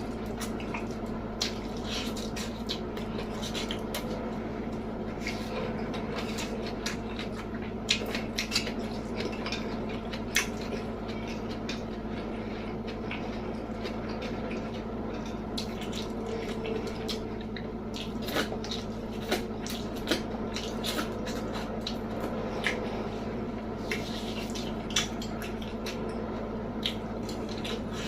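Close-up sounds of a person eating: wet chewing and mouth smacks with scattered clicks of utensils on a plate, over a steady low hum.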